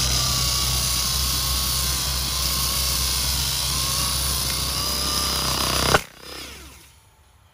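Turbowheel Phaeton electric scooter's front hub motor spinning the front tire against concrete in a burnout: a steady whine over the scrubbing of the tire. About six seconds in it cuts off at a sharp bang, and the wheel then winds down with a falling whine.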